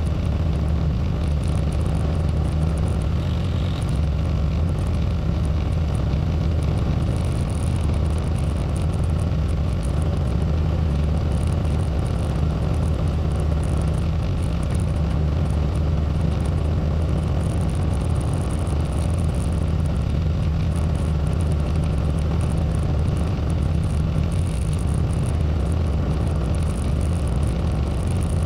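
Tractor engine running steadily with a low, even rumble while plowing snow, heard close up from the tractor itself.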